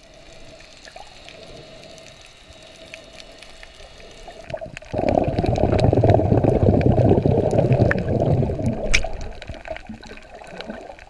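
Water moving around a camera held underwater, muffled by its housing, with scattered faint clicks. About five seconds in it turns suddenly much louder and low, rushing for about five seconds before fading.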